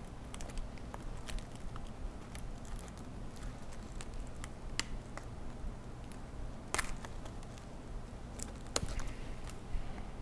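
Faint scattered clicks and crackles of a paper backing card being handled as a synthetic jungle cock eye is peeled off it, with two slightly sharper clicks near the end, over a low steady hum.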